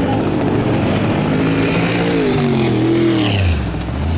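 Off-road race car engine running at high revs, its pitch falling away from about two seconds in and settling low near the end.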